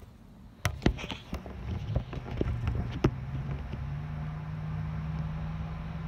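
Thunderstorm: a close thunderclap breaks in sharply about half a second in, crackling in several sharp cracks over the next two seconds, then settles into a low steady rumble over falling rain.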